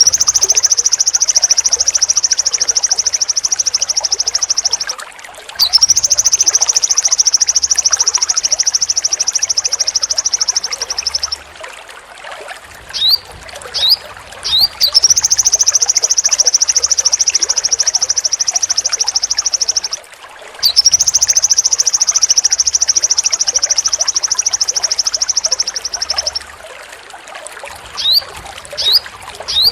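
A sogon bird singing: long, sharp, high trills (besetan) of about five seconds each, four in all, with short rising chirps in the gaps between them.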